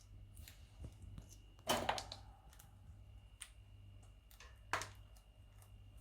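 Indian ringneck parrot eating broccoli: scattered small clicks and crunches of its beak nibbling, with two louder crunches or knocks, one about two seconds in and one near five seconds.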